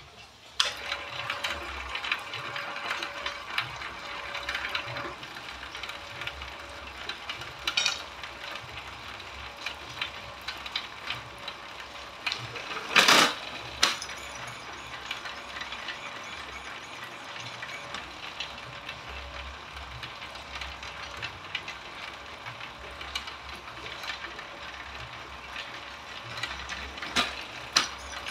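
Bamboo strip-slicing machine running: electric motor driving chain-and-belt feed rollers, with a continuous mechanical clatter of rapid clicks as a bamboo strip is fed through and shaved thin. The clatter starts within the first second, and a louder burst lasting about half a second comes about halfway through.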